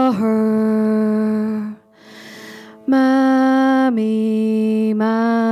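A voice chanting in long held notes on the words "Water" and "Mommy," each syllable sustained on a steady pitch. There is a short break before "Mommy," whose second syllable steps down to a lower held note.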